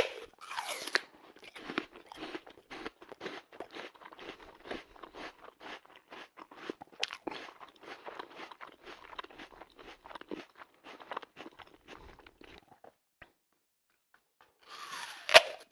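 Cartoon sound effect of a dog eating an apple: a loud crunching bite, then rapid crunchy chewing, several chomps a second, which stops about thirteen seconds in. After a pause, another crunching bite comes near the end.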